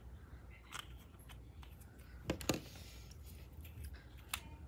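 Faint handling sounds of a rubber balloon being filled with glitter by hand: scattered light clicks and rustles, with two sharper taps a little over two seconds in and another near the end.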